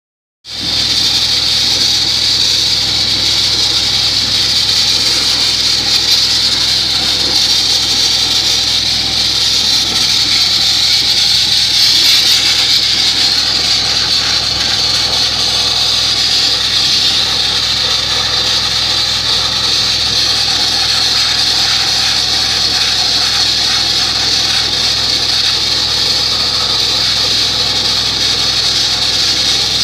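Dustless (wet abrasive) blasting nozzle spraying a water-and-grit slurry against a boat hull to strip its paint: a loud, steady, high hiss, over a low, steady engine hum.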